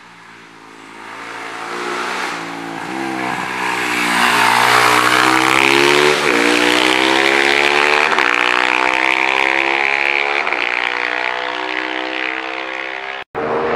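A 500cc-class racing motorcycle accelerating hard up the hill, its engine note climbing and then dropping back with each of several quick upshifts. It grows loud as the bike passes close and stays strong as it pulls away.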